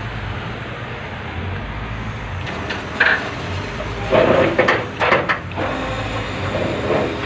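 A car carrier truck's engine running steadily, with a few sharp metal clanks and a short rattle about halfway through.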